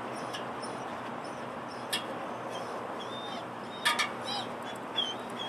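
A few light knocks on an aluminium extension ladder as a dog and a person climb it, about two and four seconds in. Small birds chirp a few times over steady outdoor background noise.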